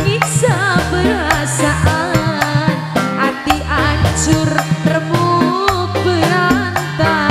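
A woman singing a tarling dangdut song live through a microphone, her melody bending and ornamented, over an amplified band with a stepping bass line and a steady drum beat.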